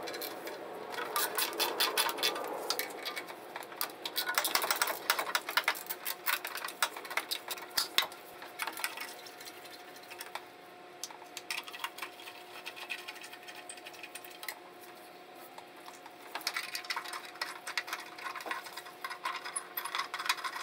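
Ratchet wrench clicking in quick runs as the bolts holding the exhaust manifold heat shield are loosened, with light metal clinks. The clicking is densest through the first half, drops off, then comes again near the end.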